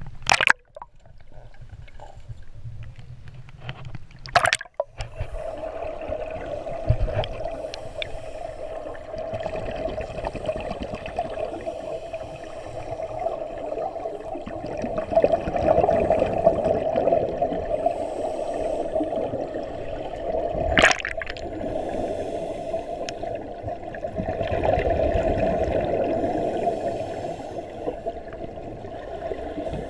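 Muffled underwater sound of scuba regulators: exhaled air bubbling and gurgling in steady swells that rise and fall, with three sharp knocks or clicks.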